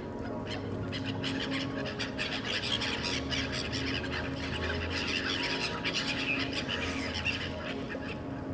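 A flock of waterbirds calling, a dense chatter of many short overlapping calls, over a low steady drone.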